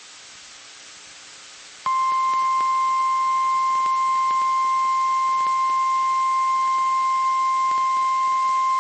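Weather radio static for about two seconds, then the NOAA Weather Radio 1050 Hz warning alarm tone comes on: one loud, steady, single-pitched tone held without a break. It is the attention signal that sets off alert receivers, sent here as the weekly alarm test.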